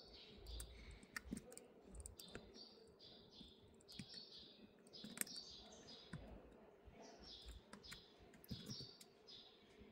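Faint small clicks and taps of fingers handling an opened iPhone 11, pressing the display's flex-cable connectors onto the logic board, scattered irregularly, over short high chirps that recur throughout.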